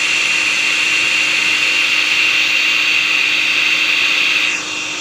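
Electric stand mixer running, its beater whipping a raw egg in the bowl: a steady motor whine with a low hum. About four and a half seconds in the whine drops away and the sound gets quieter.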